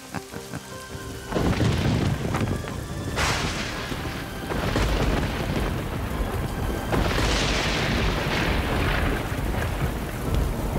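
Storm sound effect: thunder cracking and rumbling over steady heavy rain, the first clap hitting suddenly about a second in and further peals following. Background music sounds under the opening second.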